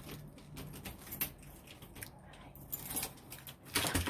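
Rustling and small scattered clicks of a hand-held phone being moved about, with a louder cluster of clicks near the end.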